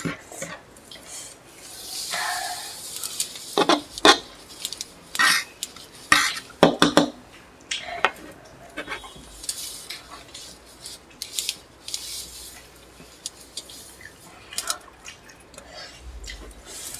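Cutlery clinking and scraping against plates as noodles are eaten, a string of sharp, irregular clicks.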